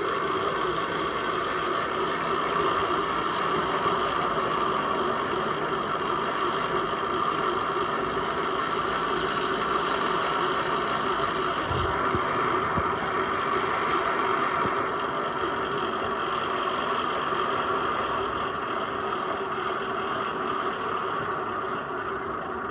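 Homemade cable winch for hauling custard apples down a mountainside, with a bicycle-wheel rim as its drum, running steadily with a continuous mechanical whir and rattle. It eases off slightly near the end.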